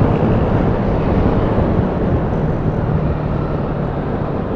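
Yamaha Aerox scooter on the move, its engine hum buried under a steady rush of wind noise on the rider's microphone.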